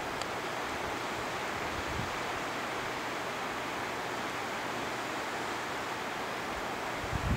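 A steady, even rush of running water. A gust of wind buffets the microphone at the very end.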